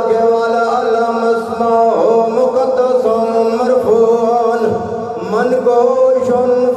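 A man's voice chanting a melodic religious recitation, holding long notes with pitch slides between them.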